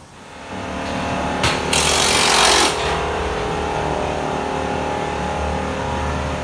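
A power tool running in a loud burst of about a second, around two seconds in, over a steady mechanical hum that starts half a second in.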